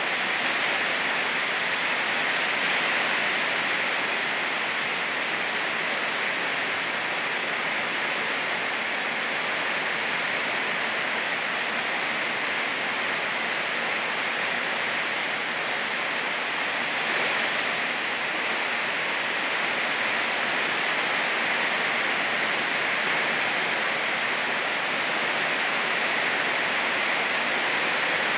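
Heavy rain pouring down steadily: an even hiss that holds at one level without a break.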